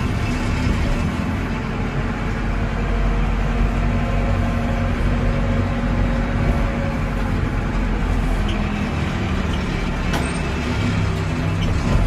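Case 580 Super M backhoe's diesel engine running steadily as the machine drives along, heard from inside the cab.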